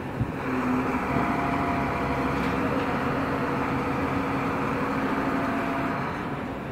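Truck crane's diesel engine running steadily under load while it hoists a heavy plant section, with a single short knock just after the start.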